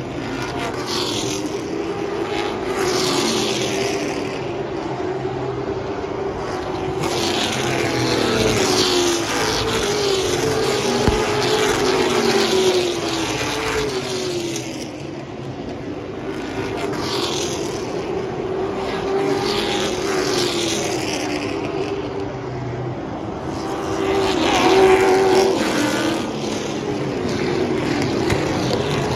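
A field of short-track stock cars racing around the oval, their engines revving up and falling back as they go through the turns. The sound swells loudest twice as the pack passes close, once about a third of the way in and again near the end.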